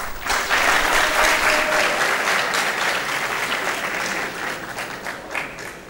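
Audience of students applauding, many hands clapping together; the applause starts at once and slowly dies away toward the end.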